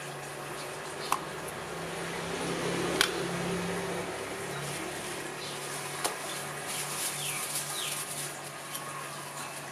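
A few sharp clicks and light ticks from small metal parts of a dismantled Shimano Ocea Conquest baitcasting reel as its drag washers are handled and set down, the loudest click about three seconds in. A steady low hum runs underneath.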